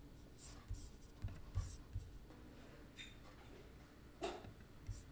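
Faint, scattered clicks and light rustles against quiet room tone.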